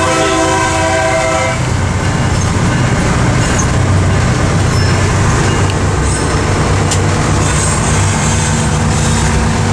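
Diesel locomotive's air horn sounding for a level crossing, a chord of steady tones that cuts off about a second and a half in. After it, the locomotive keeps up a steady low rumble as it runs along the track.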